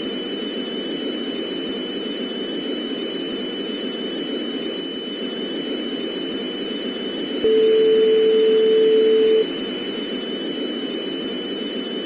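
Steady broadcast static hiss with a faint constant high-pitched whine, broken once about seven seconds in by a single loud steady beep lasting about two seconds.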